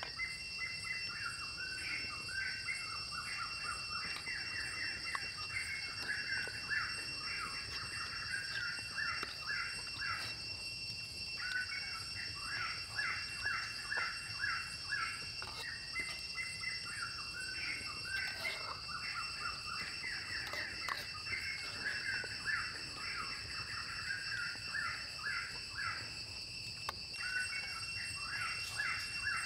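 Birds chirping in rapid, overlapping calls, with brief pauses, over a steady high-pitched hum.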